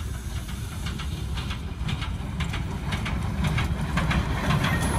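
Passenger train approaching along the track: a low rumble with wheels clicking over the rail joints, growing louder as it nears.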